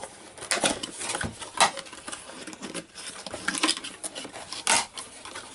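A product box being opened by hand: irregular scrapes, rustles and taps of the lid and packaging being handled.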